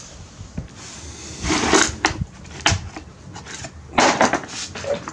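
Metal hand tools and parts clattering and clinking as they are picked up and handled. There are several separate rattles, the loudest about a second and a half in and again about four seconds in.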